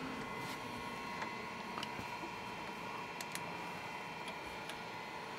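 A few small, light clicks and taps of steel parts being handled on a machine vise, over a steady low hiss and hum of the shop.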